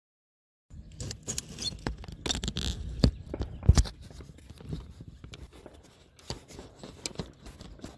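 Handling noise on a hand-held phone's microphone: fingers rubbing and tapping the casing, making irregular rustling with sharp clicks. It starts about a second in, is loudest around three to four seconds, then thins to a fainter crackle.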